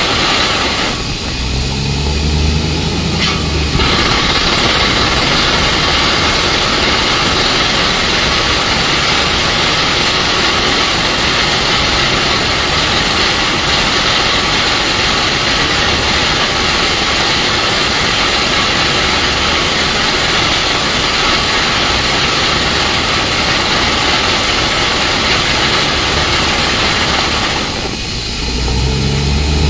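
A truck-mounted water well drilling rig running: steady heavy diesel engine noise under a strong hiss. About a second in, and again near the end, the hiss drops away briefly and the low engine hum stands out.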